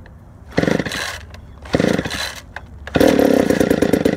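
McCulloch two-stroke chainsaw being pull-started on full choke: three pulls of the starter cord, each bringing a short burst of engine noise, the third the longest and loudest as the engine fires and runs for about a second before stopping.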